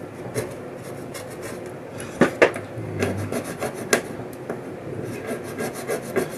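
A stubborn adhesive sticker being scraped off a chip on a circuit board, in a run of short scraping strokes. A few sharper strokes come a little after two seconds and near four seconds, and the strokes grow quicker and more even near the end.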